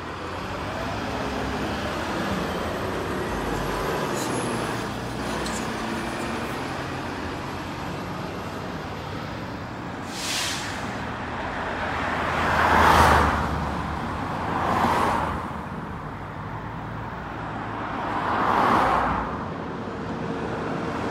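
Gillig Low Floor BRT Plus city bus pulling away from the stop, its engine sound fading into steady road traffic. Later, vehicles pass close by four times, each swelling and dying away as it goes past; the third of these is the loudest.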